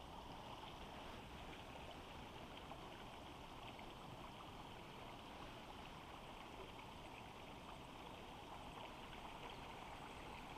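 Faint, steady flow of a river running over a shallow stony bed.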